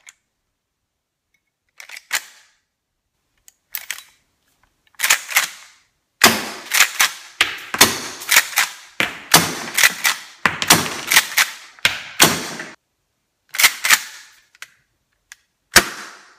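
Marushin Winchester M1887 gas-powered airsoft shotgun, firing 8mm BBs and having its lever worked. A few lone lever clacks come first, then a rapid run of shots and lever strokes lasts several seconds, and a few last clacks come near the end.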